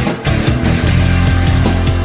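Loud heavy rock music with distorted guitars and driving drums.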